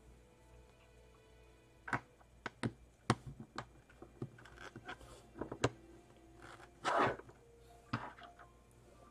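Plastic LEGO bricks clicking and tapping on a wooden tabletop as pieces are handled and pressed together, in a series of short, sharp clicks, with one longer, louder noise about seven seconds in.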